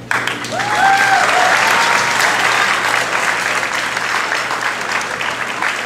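Audience applause breaks out suddenly and carries on steadily, with a few short cheering calls in the first second or two.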